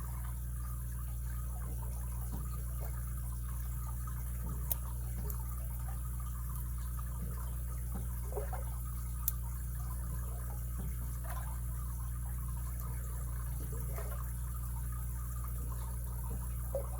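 Faint, sparse clicks and light scraping of a lock pick working the pin stack of an all-brass pin-tumbler padlock, a few sharp ticks standing out over a steady low hum.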